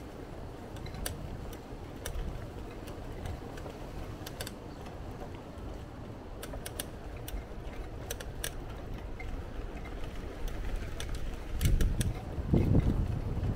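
A bicycle in motion: a steady low rumble with irregular sharp clicks and rattles, and a louder surge of rumble near the end.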